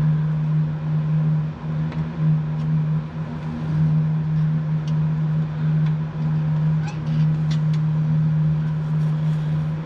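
A steady, low machine hum from a running motor, with a few faint clicks of small metal linkage parts being handled.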